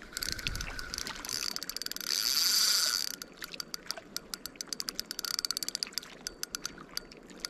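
Spinning reel ticking fast and steadily while a large hooked salmon is played on light line. About two seconds in the clicking turns denser and louder for about a second.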